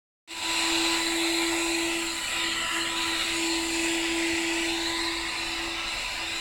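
Household vacuum cleaner running steadily: an even motor whine and rushing air, with a steady low hum.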